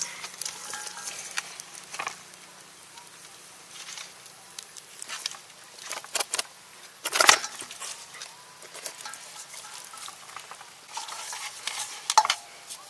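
Hands rubbing a wet spice marinade into a whole raw Muscovy duck in a metal bowl: irregular squelching and rubbing, with a few sharper slaps, the loudest about seven seconds in.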